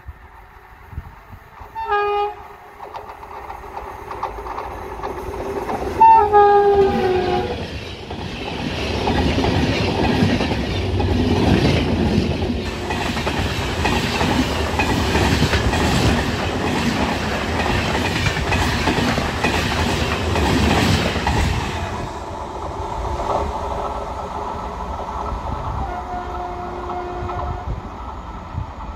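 Indian Railways electric locomotive sounding its horn, a short toot about two seconds in and a longer, louder blast about six seconds in. The locomotive and its LHB passenger coaches then pass close by for about fourteen seconds, with a steady rumble and the clickety-clack of wheels over rail joints. A fainter train horn sounds again near the end.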